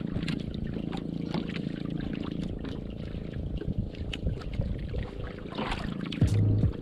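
Water sloshing and trickling around a small fishing boat at sea, over a steady low hum, with scattered knocks and splashes. A louder low buzz comes briefly near the end.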